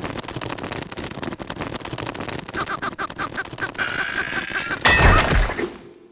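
Cartoon sound effects: a fast, dense clatter of many small hits, with a pitched, pulsing cry over it from about halfway. A loud crash comes just before the end and then dies away.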